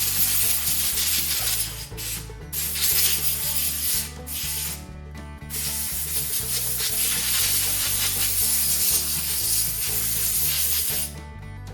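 Compressed air hissing as it blows out a Stihl MS251C chainsaw carburetor, in several long blasts with short breaks, stopping near the end.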